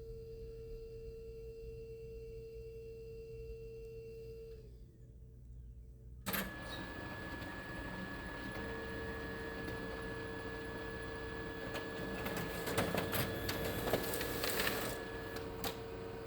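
Multifunction printer running: a steady electronic tone cuts out, and about six seconds in a sharp click starts the mechanism, which runs with a steady high whine and mechanical noise. Near the end comes a flurry of clicks and clatter, and then the whine stops.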